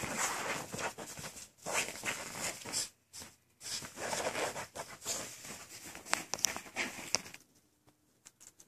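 Miniature Schnauzer puppies scuffling in play: irregular bursts of rustling and scratching with small sharp clicks, which die down about seven seconds in.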